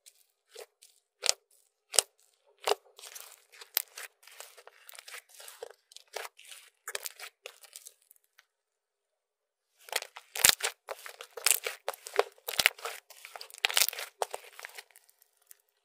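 Slime being squished, pressed and pulled apart by hand, making a run of sticky clicks, crackles and small pops. There is a short silent break just past the middle, and the clicking comes denser after it.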